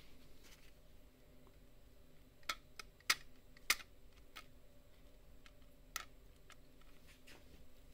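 Faint, sharp little plastic clicks and taps, about half a dozen at irregular intervals, as the tiny red plunger piece of a mouse button's microswitch is pressed and levered into its housing with the tip of a small knife.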